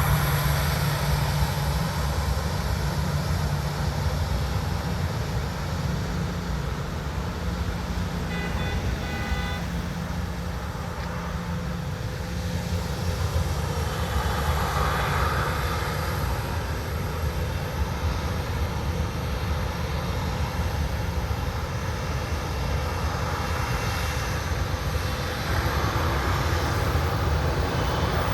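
Jet airliner engines running, a steady drone with a deep rumble that eases slightly partway through and swells again near the end.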